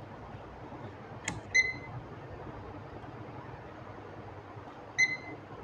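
Digital multimeter beeping twice, short single-pitched beeps about three and a half seconds apart, the first just after a sharp click.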